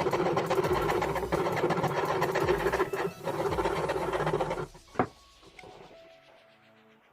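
A small power tool working wood with a fast, even buzz, broken by two short pauses and stopping about four and a half seconds in; a single sharp knock follows.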